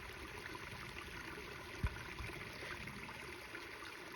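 Water running steadily down a small drop in a rain-filled ditch and flowing into a culvert. A brief low thump about two seconds in.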